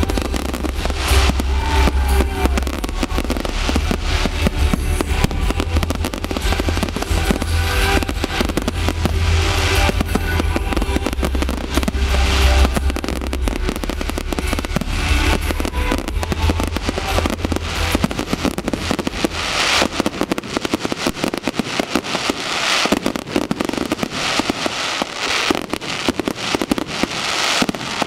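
Aerial fireworks bursting and crackling in rapid, dense succession, over loud music with a heavy bass line. The bass drops out about two-thirds of the way through, leaving the fireworks' crackle and pops.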